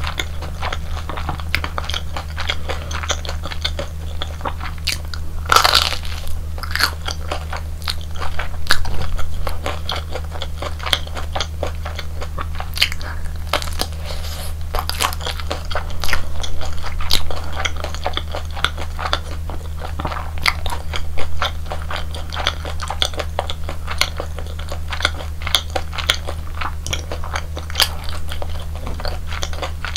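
Crunching bites and chewing of crispy deep-fried Korean hot dogs, a dense crackle with a few louder bites spread through, over a steady low hum.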